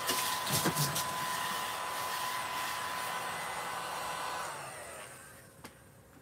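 Small desk vacuum running with a steady high motor whine as it sucks up crumbs, with a few light knocks in the first second. About four and a half seconds in it is switched off and the motor winds down, its pitch sliding lower as it fades.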